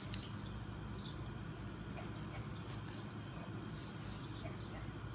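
Quiet outdoor background noise: a steady low hum with no distinct event.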